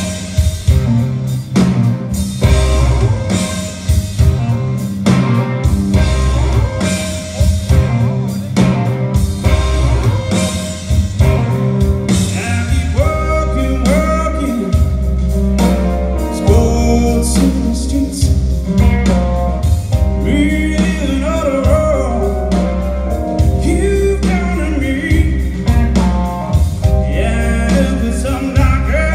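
Live blues-rock band playing: drums and bass under electric guitar, heard from the crowd in a large hall. A sliding lead melody comes in about halfway.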